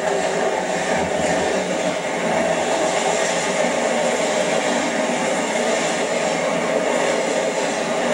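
Freight train of autorack cars rolling past close by, a steady rush of steel wheels on rail. A low diesel locomotive rumble fades out in the first couple of seconds as the trailing locomotive goes by.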